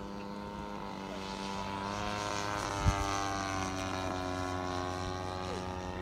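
Engine and propeller of a radio-controlled Ju 87 Stuka model aircraft running in flight, the note climbing and then falling in pitch as the plane flies past. A brief low thump comes about halfway through.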